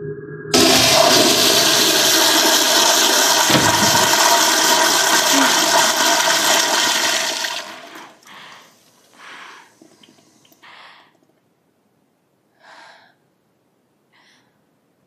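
A toilet flushing: a loud rush of water starts suddenly about half a second in and runs for about seven seconds. It then dies away into a few short, separate gurgles.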